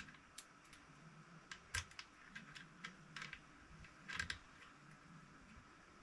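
Light, scattered clicks and taps of small metal parts and tools being handled against a Tikka T3x rifle's receiver while a scope base is fitted, loudest just before two seconds in and in a short cluster just past four seconds.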